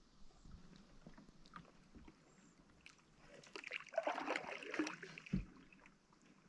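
Canoe being paddled: faint paddle strokes and water, with a louder splashing swish in the middle and a dull low knock just after it.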